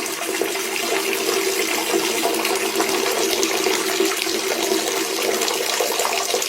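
Urination sound effect: a steady stream of liquid splashing into toilet water, starting abruptly and running without a break.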